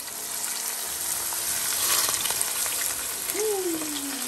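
A whole snapper sizzling in hot frying oil just after being put in the pan, the sizzle swelling over the first couple of seconds.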